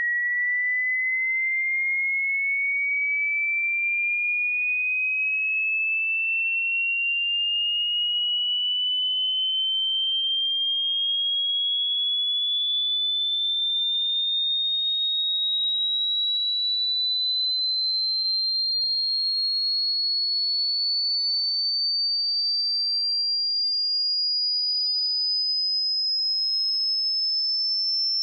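A single pure electronic tone gliding slowly and evenly upward in pitch, from a high whistle to a very high, piercing pitch, at a constant level.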